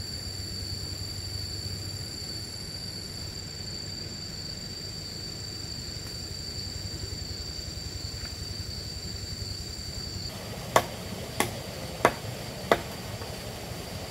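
A steady, high-pitched insect drone over a low background hum, then, about ten seconds in, four sharp strikes about two-thirds of a second apart, the work strokes of a hand tool.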